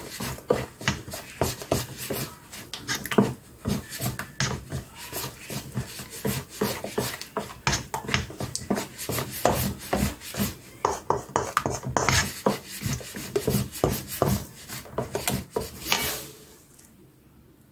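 Wooden spoon stirring thick batter in a stainless steel bowl, scraping and rubbing against the metal in quick, repeated strokes. The stirring stops about sixteen seconds in.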